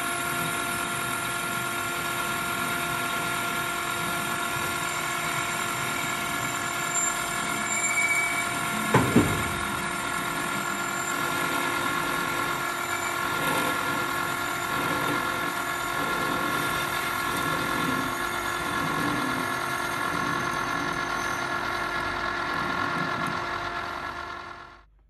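Metal lathe running at 210 RPM while a parting tool is fed by hand into a knurled bar to part it off: a steady machine whine with several tones over the noise of the cut. A single short knock about nine seconds in, and the sound fades out near the end.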